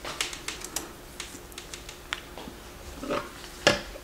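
Handling noise on a workbench: scattered light clicks and taps as equipment is moved and set in place, with one sharper knock a little before the end.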